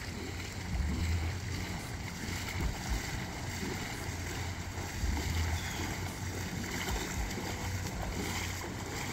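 Gusty wind buffeting the microphone outdoors: low rumbles that come and go every second or two over a steady hiss.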